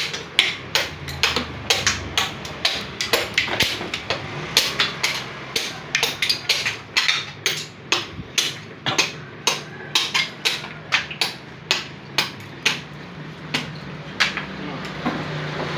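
Small hand axe chopping repeatedly at the hard shell of a mature coconut held in the hand, cracking the shell away from the meat: quick sharp knocks about two to three a second, which stop near the end.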